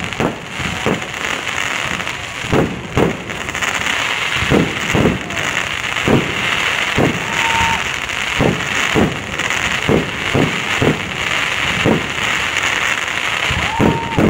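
Fireworks going off in a rapid, irregular string of bangs, about one every half second to second and a half, over a steady crackling hiss. A short whistle rises above them twice.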